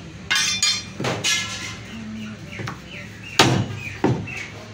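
Butcher's knife and cleaver knocking against a thick wooden chopping block as fresh beef is cut, a handful of separate knocks with the loudest about three and a half seconds in.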